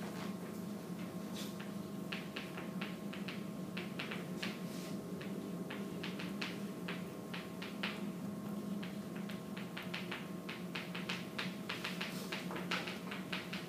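Chalk tapping and scratching on a chalkboard as words are written, a run of short sharp clicks in quick clusters over a steady low room hum.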